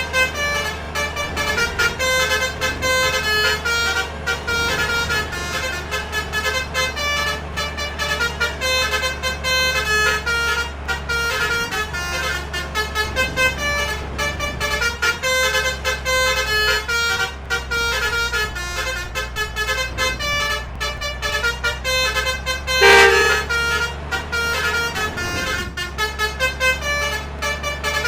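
Basuri 'telolet' multi-tone air horns on a bus playing a melody of short, rapidly changing notes over a steady low engine rumble. Near 23 s a louder, lower single horn blast of about half a second cuts through.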